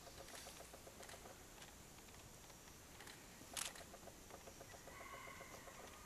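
Near silence: faint outdoor background with runs of quick, even ticks and one sharp click about three and a half seconds in.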